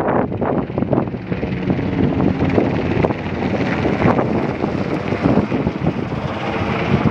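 Helicopter flying low overhead: continuous rotor and turbine engine noise with a rapid, uneven pulsing from the blades, mixed with wind buffeting the microphone.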